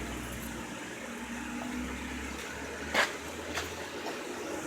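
Mercedes W210 engine idling with a low steady hum, running with engine-flush additive in the oil before an oil change. A single sharp click sounds about three seconds in.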